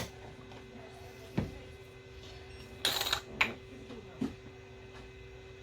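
Small tools and parts clicking and tapping on a repair bench, with a low knock about a second and a half in and a brief rasping burst about three seconds in, over a steady electrical hum.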